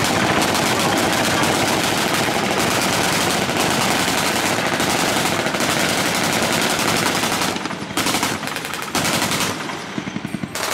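Rapid automatic gunfire, dense and continuous for about seven seconds, then breaking into a few short bursts and easing off near the end.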